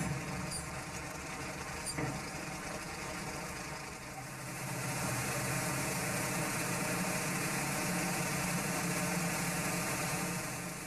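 A heavy military truck's engine running slowly, with a sharp click about two seconds in. From about four seconds in, a work boat's engine running with the steady rush of water thrown out by its WMC water-jet drive.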